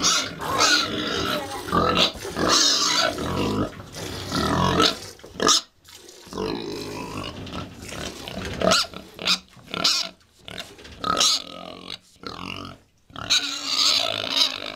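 Domestic pigs calling in a pen: a run of loud, irregular calls with short breaks, shrillest about two to three seconds in and again near the end.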